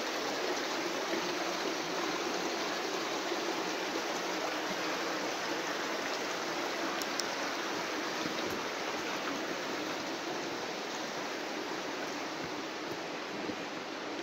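Steady rushing of running water without a break, easing slightly near the end.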